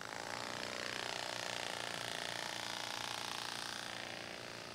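AeroVironment Nano Hummingbird's flapping-wing drive starting up as the robotic hummingbird lifts off: a dense mechanical buzz that starts suddenly and runs steadily, easing slightly near the end.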